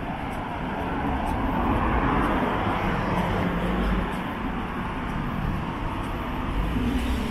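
City street traffic, with a passing vehicle that swells to its loudest about two to four seconds in and then fades.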